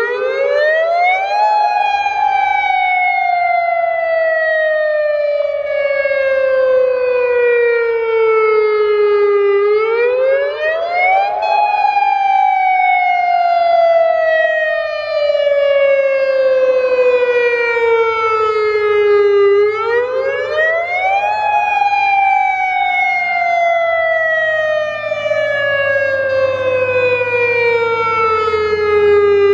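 Tsunami warning siren of the AHAB (All Hazard Alert Broadcast) system sounding its wail tone, part of a siren test. The pitch climbs quickly, then falls slowly over about eight seconds, and the cycle repeats about every ten seconds, three times in all.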